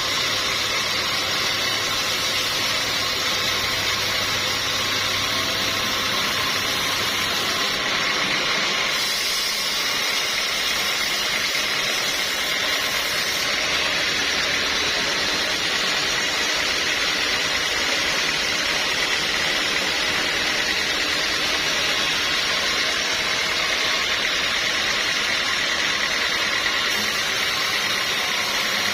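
Sawmill machinery running steadily, a continuous loud machine noise with a high steady whine in it; the low rumble drops away about nine seconds in.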